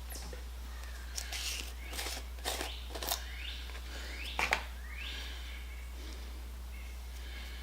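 Scattered light clicks and knocks, with three short rising chirps about halfway through, over a steady low hum.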